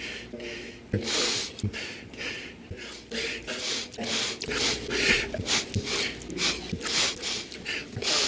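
A man sniffling and breathing hard through his nose into a close microphone: a quick run of short, hissy sniffs and breaths, about two a second.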